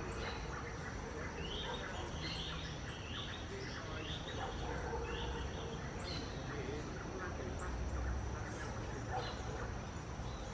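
Outdoor forest sound: a bird calls in a run of short, high notes about twice a second through the first half, over a steady high-pitched whine.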